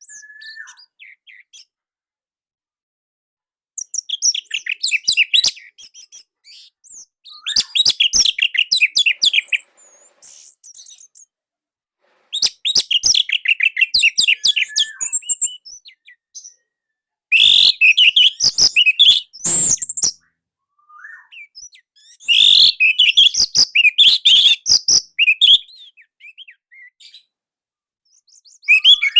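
Orange-headed thrush (anis merah) singing: about six loud phrases of rapid, high chattering notes, each lasting two to three seconds, with short silences between them.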